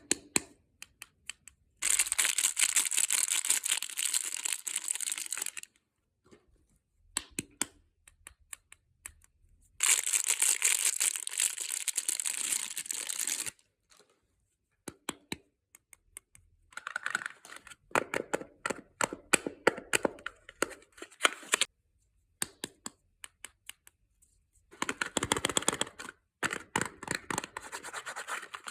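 Soap packaging being unwrapped: two long stretches of tearing and rustling of the wrapper, then bursts of quick crackling and scratching.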